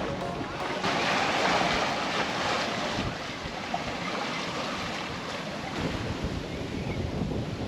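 Ocean waves rushing and washing around a small sailboat at sea, with wind buffeting the microphone. A louder surge of water comes about a second in and lasts a couple of seconds, then the wash settles to a steadier rush.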